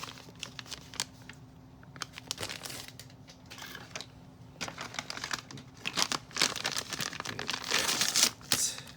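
Small plastic packaging bags crinkling and being torn open, with scattered sharp clicks; the rustling gets busier and louder over the last few seconds.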